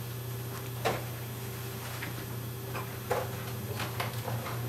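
Kitchen clatter: a few irregular knocks and clicks of dishes and cupboards being handled at a counter, over a steady low hum.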